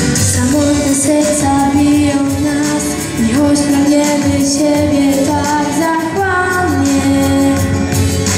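A boy singing a Polish pop song into a microphone over a backing track, his voice holding long, stepping notes.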